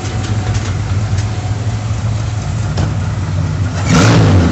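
Chevrolet Opala's straight-six engine running with a loud, deep rumble, growing louder about four seconds in.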